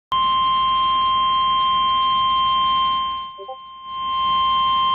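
Emergency Alert System attention tone: a loud, steady electronic tone that drops away briefly about three seconds in and then comes back, announcing a flash flood warning.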